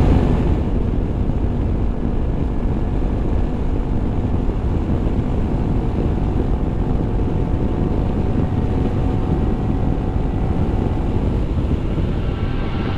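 Riding noise from a Honda ADV350 scooter under way: a steady rush of wind and road noise on the microphone with the even hum of its single-cylinder engine. Background music comes in near the end.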